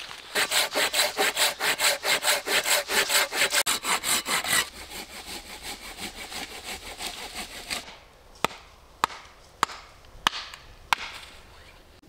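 Small hand saw cutting through a dry stick with quick back-and-forth strokes, about five a second for some four seconds, then softer and slower strokes. Near the end come several sharp single cracks, about half a second to a second apart, of sticks being snapped.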